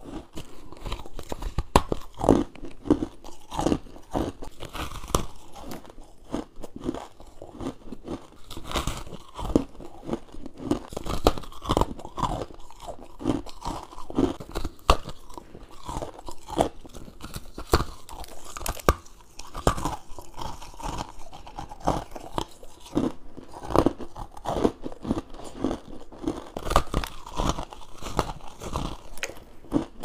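Mouth chewing and crunching frost ice: a dense, irregular run of crisp crunches and bites, with no pause.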